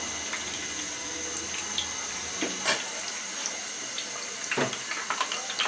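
Breaded minced-chicken kababs deep-frying in hot oil over medium heat: a steady sizzle. A spatula knocks against the pan a couple of times as the kababs are lifted and turned.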